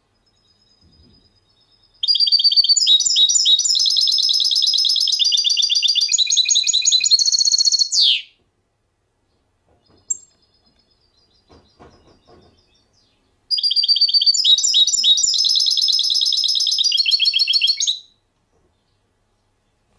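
A songbird singing two long phrases of fast, high trills, each about five seconds long, the first starting about two seconds in and the second past the halfway point, with a few soft faint notes before each phrase.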